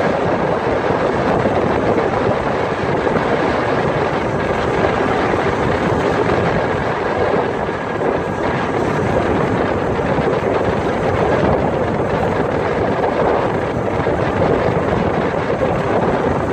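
Steady noise of a pilot boat under way: its engines run at a constant speed while water rushes along the hull and wind buffets the microphone.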